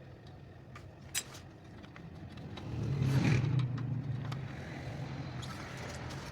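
A car engine's sound swelling to a peak about three seconds in, then easing off but staying up, with a sharp click about a second in.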